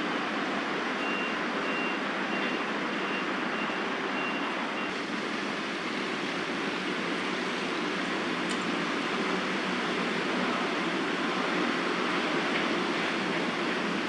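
Steady hiss of distant city traffic. A faint high beeping repeats about twice a second in the first few seconds.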